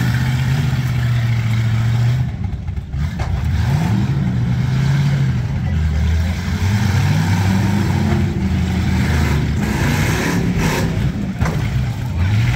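Demolition derby cars' V8 engines running, holding a steady note for about two seconds, then revving up and down repeatedly.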